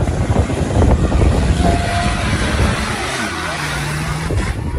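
Off-road race vehicle engines running, a steady low rumble with a few brief engine tones, and indistinct voices in the background.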